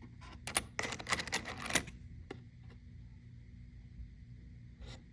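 Loose steel construction screws clicking and rattling against each other as they are handled, a quick run of clicks in the first couple of seconds, then a single click and another near the end.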